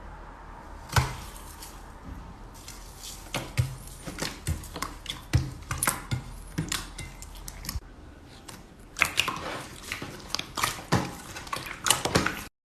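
Slime being squeezed and poked by hand, with bursts of crisp clicking and crackling pops over a faint steady hum.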